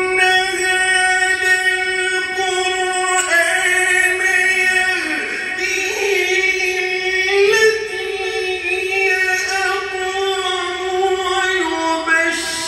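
A male qari reciting the Quran in melodic tajweed style, drawing out one long ornamented note with small turns in pitch; the pitch dips about five seconds in and climbs again about seven seconds in.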